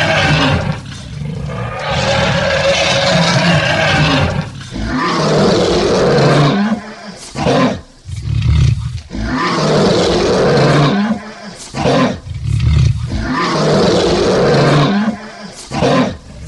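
Lion roaring over and over, a series of long, loud roars broken by short pauses.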